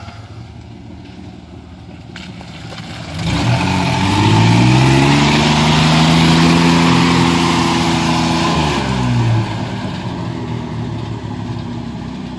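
Ford Ranger pickup's engine revving up about three seconds in and held high for several seconds as its tyres churn through mud, then dropping back to a lower steady run near the end.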